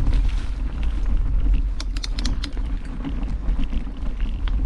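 Steady low rumble of wind buffeting the microphone, with a quick cluster of sharp clicks and rattles about two seconds in, typical of a mountain bike on a rocky trail.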